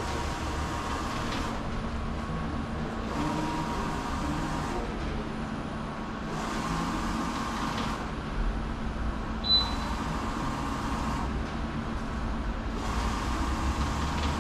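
Large-format inkjet printer printing a banner: the print-head carriage whirs across the machine in repeated passes of one to two seconds each, over the machine's steady hum. A brief high chirp about halfway through.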